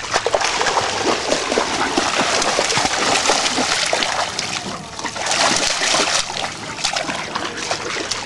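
Dogs wading and splashing in shallow lake water, a continuous mix of sloshing and splashes.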